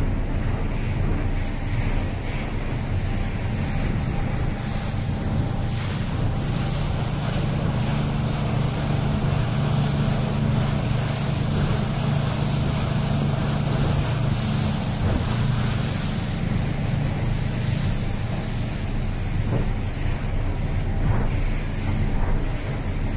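Sargo 31 motorboat under way in rough water: a steady engine drone under the rush and splash of water along the hull, with wind buffeting the microphone.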